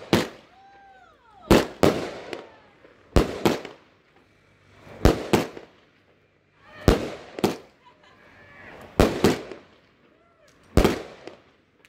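Firework cake firing its shells one after another, which its owner takes for a 50-shot repeater: about seven rounds, each a sharp bang closely followed by a second bang and crackle, coming roughly every one and a half to two seconds.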